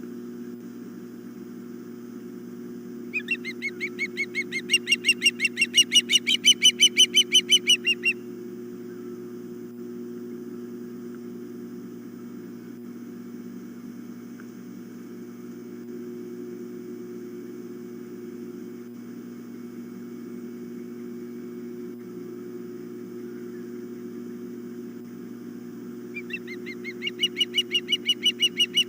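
Osprey calling: two bouts of rapid whistled chirps, about four a second, building in loudness, over a steady low hum.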